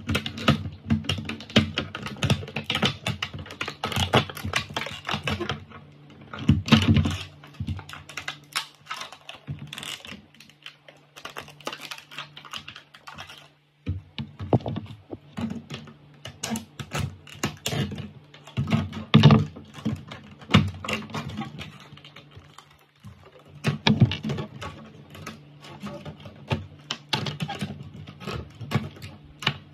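Small hard plastic toy parts clicking and rattling in quick, irregular bursts as they are handled and snapped together, over a faint steady low hum.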